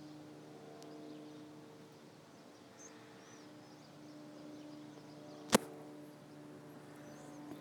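Quiet handling of a sheet of printer paper being folded, over a steady low hum, with one sharp click about five and a half seconds in.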